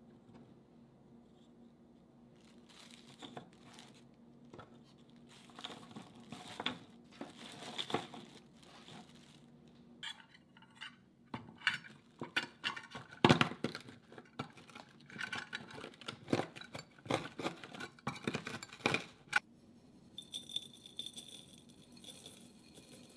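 Plastic bag crinkling while chocolate Oreo wafers inside it are crushed with the base of stainless steel measuring cups: irregular crunches, crackles and knocks, loudest about halfway through. Near the end, a faint fine patter of cookie crumbs pouring into a glass bowl.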